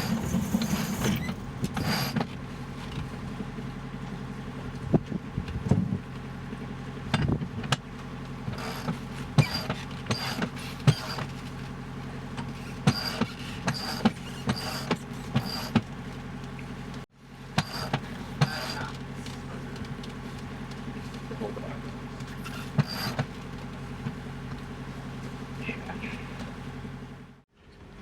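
A sailboat's engine running steadily under way, with frequent light clicks and creaks from the boat's gear over it. The sound drops out briefly twice, about halfway through and again near the end.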